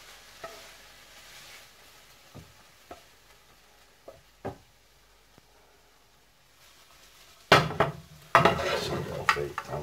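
A frying pan of prawn and tomato stir-fry being served: a faint fading sizzle and a few light clicks of a spatula against the pan as food is slid onto a plate, then a short quiet gap. About seven and a half seconds in, louder clattering and scraping of the pan and spatula as the pan goes back on the electric hob.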